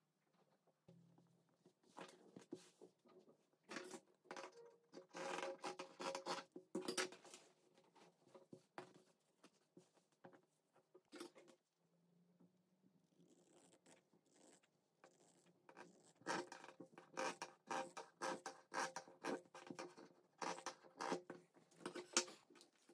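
Faint rustling and scratching of cotton fabric being handled on a table, with fabric scissors snipping through the cloth. It comes in two busy bouts of small crackles, with a quieter lull in the middle.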